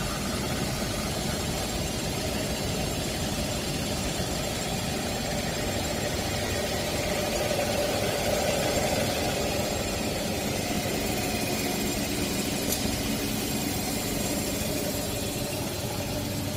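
Shrink sleeve label seaming machine running steadily at speed, an even mechanical whir of motors and rollers with a low steady hum, swelling slightly about halfway through.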